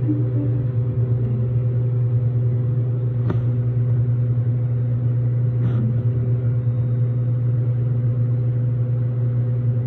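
A steady low hum with a few fainter steady tones above it, and two faint clicks, one about three seconds in and one near six.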